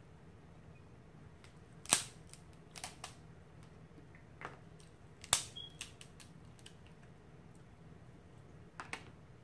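Boiled crab leg shells cracked and picked apart by hand: sharp snaps, the two loudest about two seconds in and again about five seconds in, with lighter clicks of shell breaking between them.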